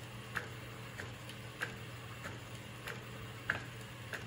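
Epson P405 inkjet printer, converted for DTF printing on roll film, printing: a regular click about every 0.6 s as the print head carriage shuttles back and forth, over a steady low hum.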